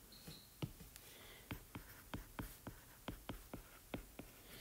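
Stylus tip tapping and clicking on a tablet's glass screen while handwriting: a dozen or more faint, light ticks at an irregular pace.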